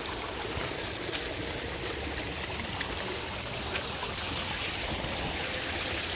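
Stream water running steadily near the top of a waterfall, with a couple of brief clicks.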